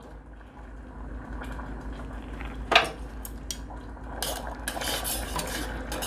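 Metal kitchen tongs clinking and scraping against a stainless steel saucepan as they push butter around in hot sauce to melt it. A few sharp clicks come first, one loud clink about three seconds in, then denser scraping and clattering in the second half.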